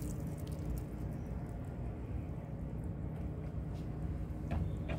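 Water from a garden hose spraying onto a planter of flowers and soil, stopping about a second in. After that a steady low background hum remains, with a few faint knocks near the end.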